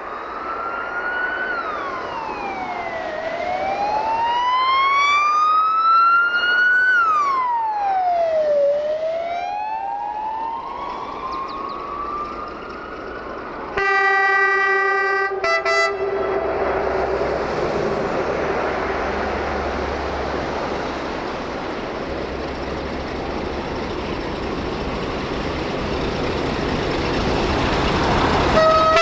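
A wailing siren, its pitch climbing slowly and dropping back three times. About halfway through, a train horn sounds for about two seconds, briefly broken, and the rumble and rush of a passing train follows.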